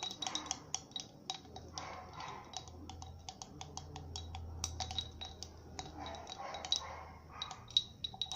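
Metal scissors stirring glue and tempera paint in a container, clicking and tapping against its sides many times in an irregular run.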